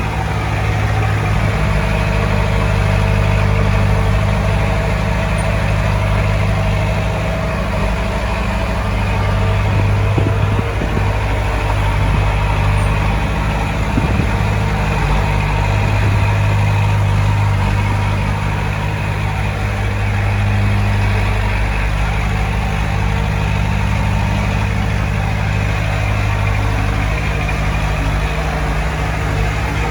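Heavy diesel engine of earthmoving equipment running steadily under a constant low drone, with slight rises and falls in level.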